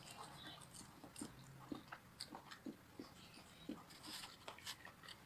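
A person chewing fried chicken, faint: soft, irregular mouth clicks about twice a second.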